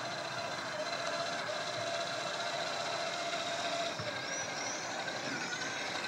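Electric drive motor and gearbox of a 1/8-scale Absima CR1.8 RC crawler whining steadily as it drives slowly, the pitch dipping a little about four seconds in.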